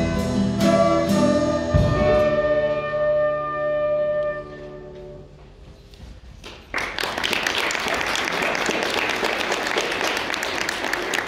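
A small band of two flutes, acoustic guitar and a Tama drum kit ends a piece: drum and cymbal hits, then a final held chord that fades away about four seconds in. After a short lull, audience applause breaks out about seven seconds in and carries on.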